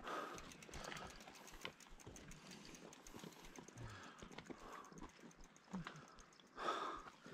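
Faint footsteps and the knocks of a mountain bike being pushed uphill over rough, stony ground.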